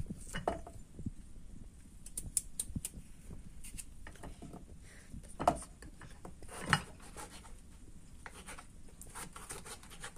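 Small kitchen knife peeling and then slicing a raw potato on a wooden cutting board: irregular scraping strokes and light blade taps on the wood, with two louder knocks past the middle.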